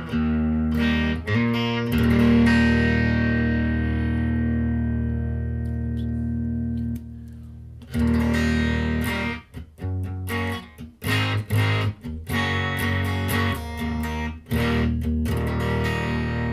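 Electric guitar played through a breadboard prototype distortion pedal with its gain set high, giving a heavily clipped, distorted tone. A chord rings out for several seconds, then comes a run of short, chopped chords, then a last chord left to ring.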